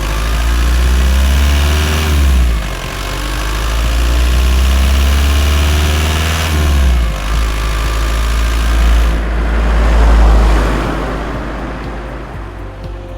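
Audi A3 8L 1.9 TDI four-cylinder turbodiesel engine accelerating. Its revs rise and then drop sharply twice, as with gear changes, about two and about seven seconds in. A broad swell of engine and road noise follows, peaks about ten seconds in and fades.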